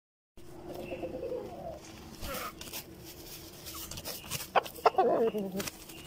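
Aseel chickens clucking and calling as a rooster mounts a hen held down by hand. Near the end come two sharp slaps, then a squawk that falls in pitch.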